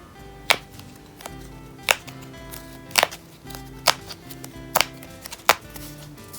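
Background acoustic guitar music with six sharp, irregular crackles and clicks over it, from a foil sticker pack being handled and opened.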